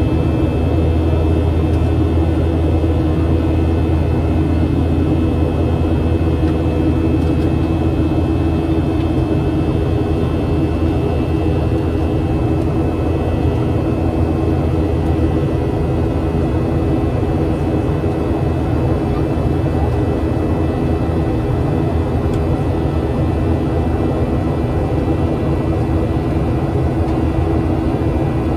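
Cabin noise of a Boeing 737-700 in flight, its CFM56-7B jet engines and the airflow making a steady drone with a strong low hum and faint steady whining tones above it.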